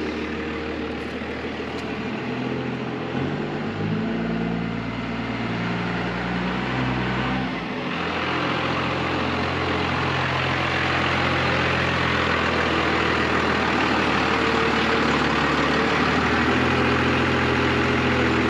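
A vehicle engine running. Its pitch steps up about three seconds in and drops back near eight seconds, then holds steady while a rushing noise builds.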